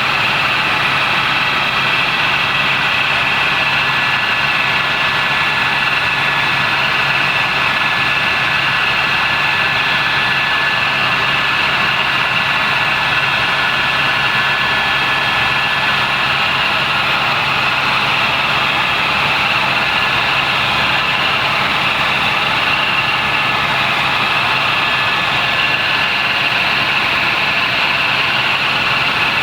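Helicopter in flight: steady, unchanging engine and rotor noise with a thin high whine running through it.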